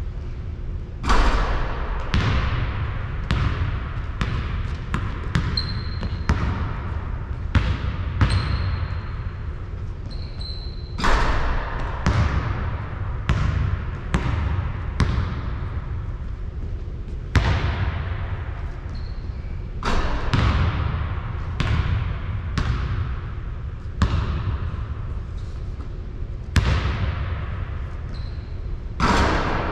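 A basketball bouncing on a hard court: irregular thuds, each ringing on briefly, several much louder than the rest. A few short, high sneaker squeaks come in among them.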